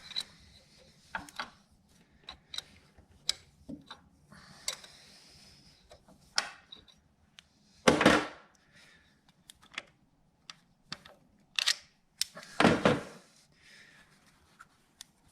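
Scattered metal clicks and knocks of hand work on a small-block V8's timing chain and gear set, with two louder clatters about eight and twelve and a half seconds in.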